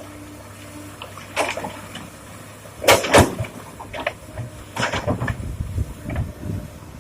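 Stones knocking and clattering against steel as a Komatsu PC200-6 excavator loads rock into a dump truck. Irregular sharp knocks, the loudest pair about three seconds in, over the low steady hum of the excavator's diesel engine.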